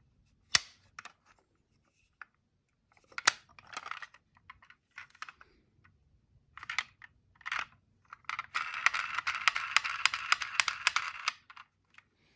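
Die-cast toy minicars being handled: sharp clicks and brief scrapes as they are picked up and set down. Near the end, one rolls down a slope with a rattling run of about three seconds.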